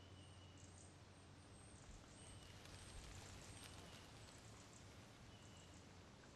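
Near silence: faint rural outdoor ambience with a few faint, short, high chirps now and then.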